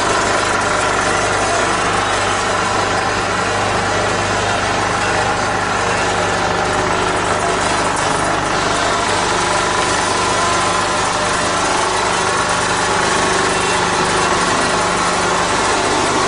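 Steady drone of a running food-packing line: the motor-driven inclined cleated belt conveyor feeding frozen chicken legs, with a constant low hum under an even mechanical noise.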